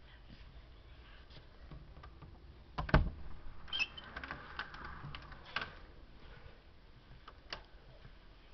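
Handling noise from a handheld camera: a thump about three seconds in, then scattered clicks and light rustling, and one more click near the end.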